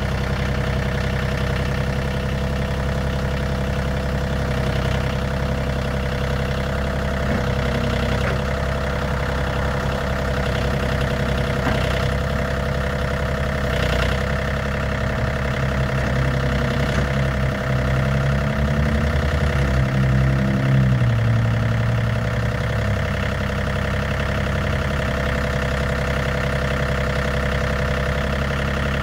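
John Deere 3320 compact tractor's three-cylinder diesel engine idling steadily. For a few seconds about two-thirds of the way through, the engine note shifts and grows louder, as if briefly under load, then settles back to idle.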